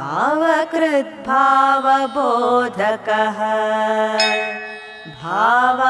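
Female voices chanting Sanskrit stotram verses in a slow, melodic devotional chant. Each phrase opens with a rising glide in pitch; there is a quieter pause about four seconds in, before the next line begins.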